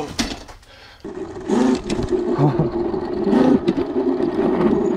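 The electric motor and chain drive of a 6000-watt, 72-volt electric mini bike running at speed: a steady hum that starts about a second in.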